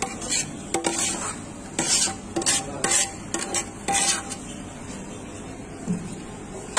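Metal spoon scraping and knocking against a metal pan as a thick spiced mixture is scooped out onto foil: a run of sharp scrapes and clinks for about four seconds, then quieter.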